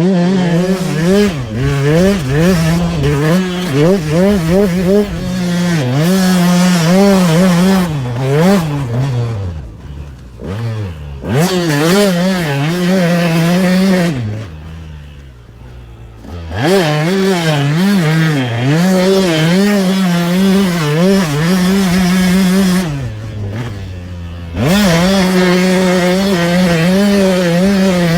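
KTM 200 SX two-stroke dirt bike engine revving hard, its pitch surging up and down rapidly as it is ridden through whoops. Three times the throttle closes and the revs fall away to a low burble, then climb again.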